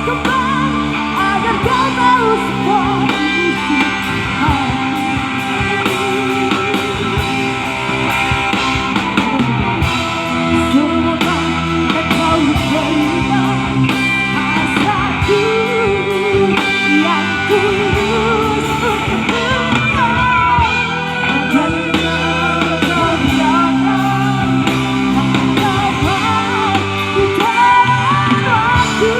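A band playing a rock song, with electric guitar under a singer using a rock-style voice.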